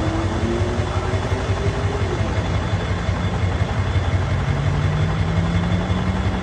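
Pickup truck's 7.3 engine idling steadily with a low, even rumble. A faint tone slowly rises in pitch over the second half.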